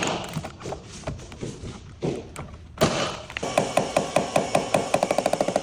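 Scattered sharp knocks, then from about three and a half seconds in a fast, even run of sharp taps, about eight a second, each with a ringing tone.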